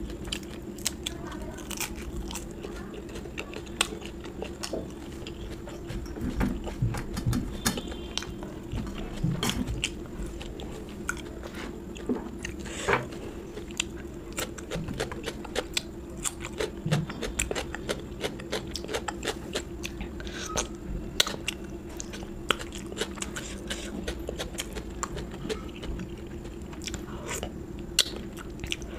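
Close-miked eating of a South Indian meal: chewing with frequent crisp crunches and mouth clicks, over a steady low hum.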